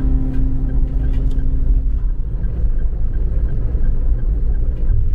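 Steady low rumble of a car being driven, road and engine noise heard while driving.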